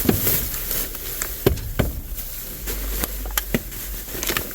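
Rummaging through a trash bag full of break room items: rustling with a few sharp knocks as things are handled.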